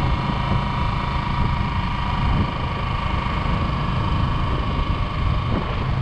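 Small motorcycle riding along a dirt road: the engine runs steadily at cruising speed under tyre and wind noise, with a steady whine running through it.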